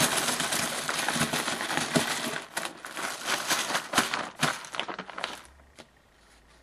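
Small hard pieces rattling and clinking as they are shaken and mixed before a random letter draw. The rattle stops about five seconds in.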